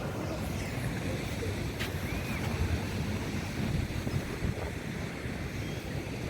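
Sea surf washing on a beach, with wind rumbling on the microphone.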